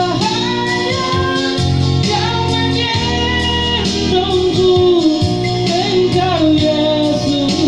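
A high voice singing a melody over plucked guitar accompaniment.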